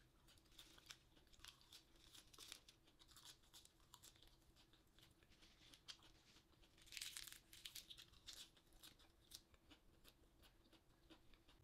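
Fresh lettuce leaves torn apart by hand: a run of short, faint crackling rips, with a longer, louder tear about seven seconds in.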